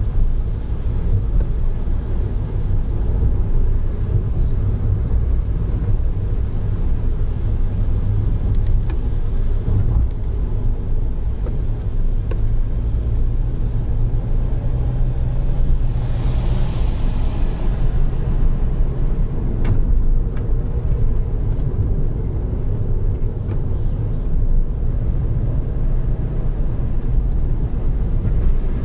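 Car cabin noise while driving: a steady low rumble of engine and tyres heard from inside the car. About halfway through there is a short rush of hiss.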